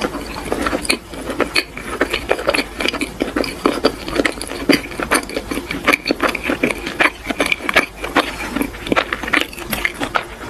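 Close-miked chewing: a dense, irregular run of wet clicks and crackles from a person's mouth working a mouthful of food.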